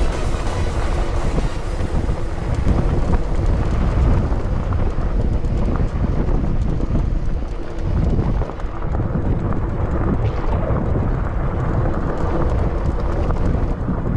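Wind buffeting the microphone, over the rumble and rattle of a mountain bike rolling fast down a rocky gravel trail.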